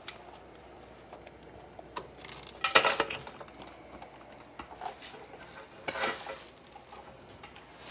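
Metal cooking pot and lid rattling and scraping, with a loud clatter about three seconds in and smaller knocks and scrapes around five and six seconds.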